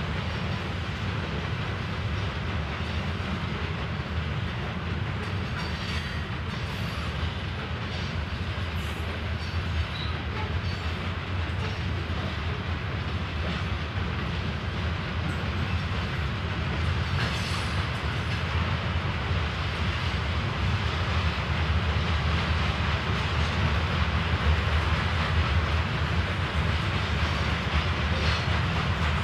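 A freight train rolling past: a steady rumble of wheels on rail with occasional clicks, growing a little louder near the end.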